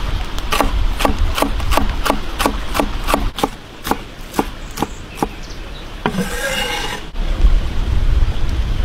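Cleaver chopping green onions on a wooden cutting board: a steady run of knocks, about two to three a second, stopping about five seconds in. A brief swish follows, and a low rumble of background noise comes in near the end.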